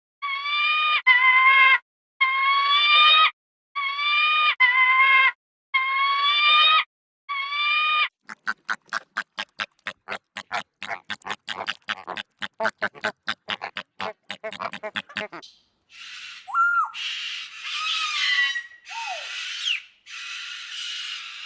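A run of farm animal calls. First come repeated calls of about a second each, rising slightly in pitch. Then a rapid series of short pulses, several a second. Then harsher, noisier calls with sliding pitch near the end.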